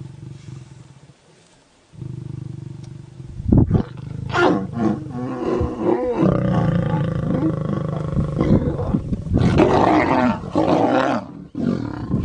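Lions growling and snarling loudly while a male lion is mounted over a lioness in mating. A low rumble comes first, then from about three and a half seconds in a long run of harsh snarls and growls that is loudest near the end, and the lioness rolls away.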